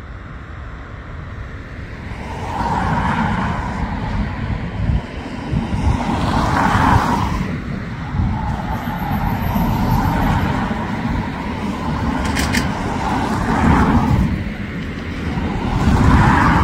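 Outdoor vehicle noise: a steady low rumble, with something swelling past and fading away about every three to four seconds.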